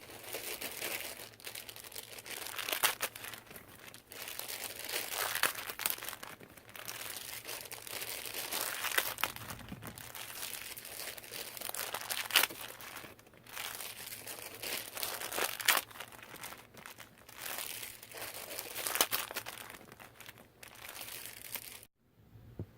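Small plastic bags of foam Nerf Rival rounds being ripped open at the staple and emptied, the plastic crinkling throughout with a sharp rip about every three seconds. It cuts off suddenly near the end.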